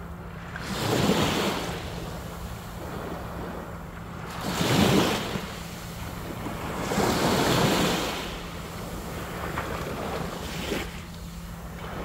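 Small waves lapping onto a sandy shore, each wash swelling and then fading, about three clear ones with a smaller one near the end, with some wind on the microphone and a faint steady low hum underneath.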